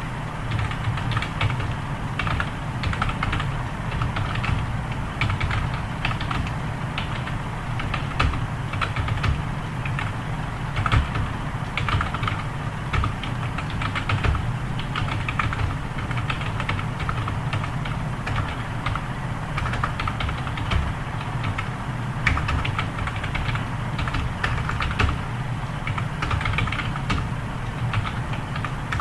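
Fast, continuous typing on a computer keyboard: a steady run of irregular key clicks during a typing test, over a steady low hum.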